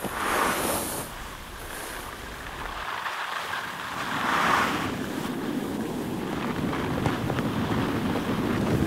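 Wind-like rushing noise that swells twice, then settles into a steadier low rumble with a few faint ticks.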